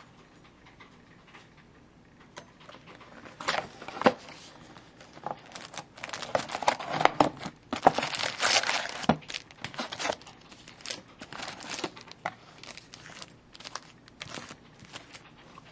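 Foil-wrapped trading card packs rustling and crinkling as they are pulled out of a cardboard hobby box and handled in a stack. The crinkling comes in irregular bursts, thickest in the middle, then thins to scattered light ticks.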